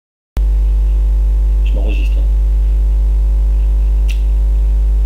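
Loud, steady electrical mains hum with buzzing overtones, cutting in abruptly just after the start. A brief vocal sound comes about two seconds in and a single click about four seconds in.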